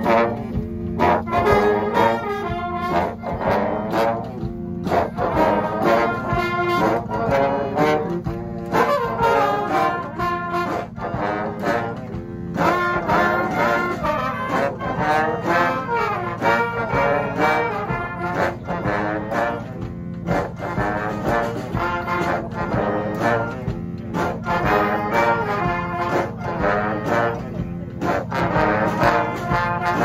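Brass street band playing a tune together: several trombones and trumpets with a clarinet and drums.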